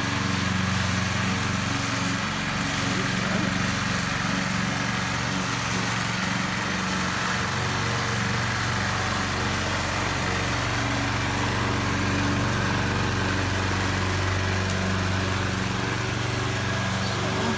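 Walk-behind lawn mower's small gasoline engine running steadily while mowing grass.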